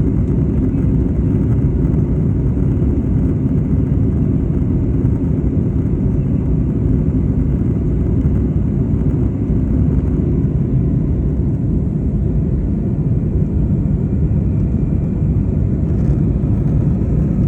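Airliner cabin noise just after takeoff: the steady low rumble of the jet engines and rushing air heard inside the passenger cabin, unchanging throughout.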